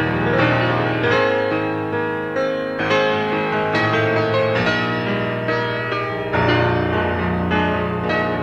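Instrumental piano music, with chords and melody notes struck and left to ring.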